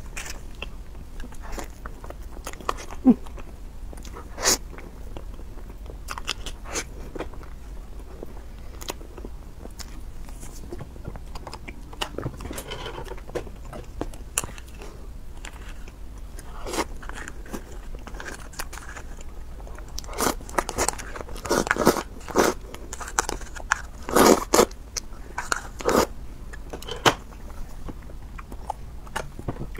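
Close-miked eating sounds from a person: bites, chewing and wet mouth clicks, scattered throughout and busiest about two-thirds of the way through.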